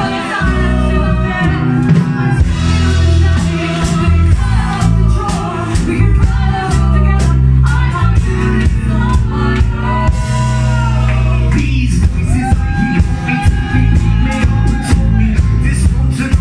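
Live band performing a song: singing over guitar and bass with a steady beat.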